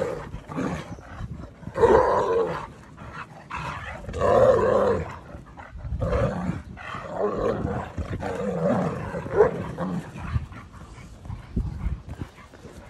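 Irish wolfhounds growling in play as they wrestle: a run of rough growls, the loudest about two seconds and four and a half seconds in, dying down near the end.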